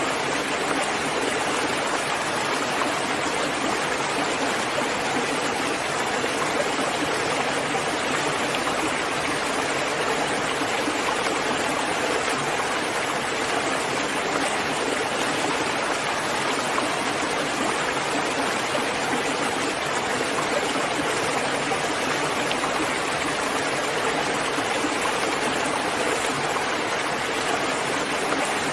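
Steady rain, an even unbroken hiss with no distinct drops, thunder or changes.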